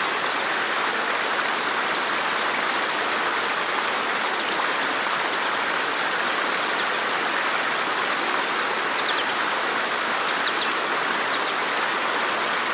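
Steady rush of flowing water from a fast stream, with a few faint high chirps here and there.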